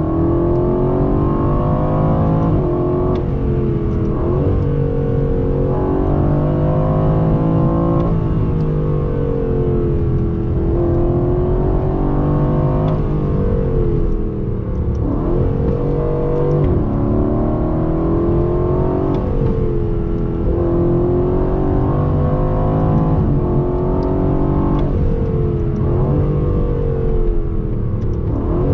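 2020 Aston Martin Vantage's AMG-derived 4.0-litre twin-turbo V8 under hard acceleration, heard from inside the cabin: the engine note climbs in pitch and drops sharply at each quick upshift, many times over. At every shift the ignition cuts for an instant to let the gear change happen.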